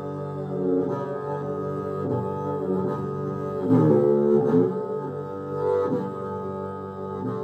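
A large upright bowed string instrument with a long neck and round body plays slow, low sustained notes. About four seconds in, its notes slide up and down before settling back to a held note.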